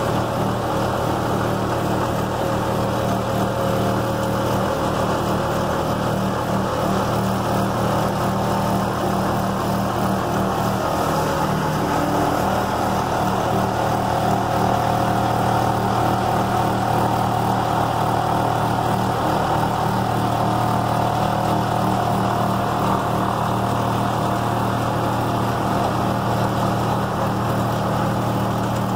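Packer 750 horizontal grinder's engine running steadily. A higher whine rises over it for several seconds in the middle.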